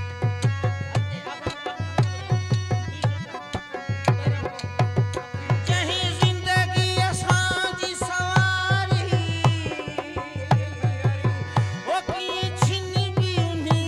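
Sindhi Sufi folk music: a hand drum keeps a steady, fast rhythm under sustained harmonium tones, with clicks of wooden clappers. A male voice starts singing about six seconds in and carries on over the accompaniment.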